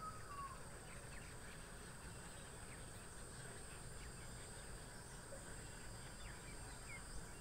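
Faint outdoor ambience: a steady, high-pitched insect drone such as crickets, with a brief chirp at the start.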